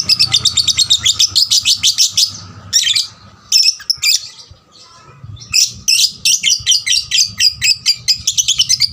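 Young lovebird chattering: a fast run of sharp, high chirps, about ten a second, that breaks off for a couple of seconds in the middle and then starts again.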